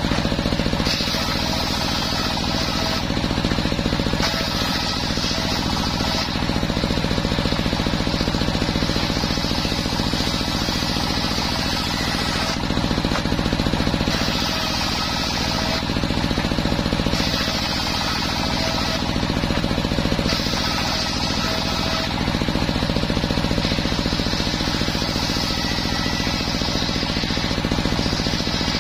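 Homemade engine-driven table circular saw running steadily with a fast thumping beat while waru-wood boards are ripped; a higher whine of the blade biting wood rises and drops away again and again as each cut goes through, in stretches of one to two seconds.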